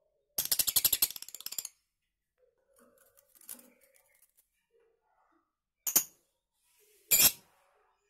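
Caged lovebird giving a rapid chattering trill of about a second, the 'ngekek' chatter that lovebird keepers try to draw out, then two short shrill calls about a second apart near the end.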